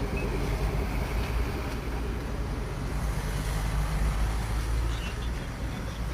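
Road traffic: motor vehicles driving past close by, a steady low rumble throughout.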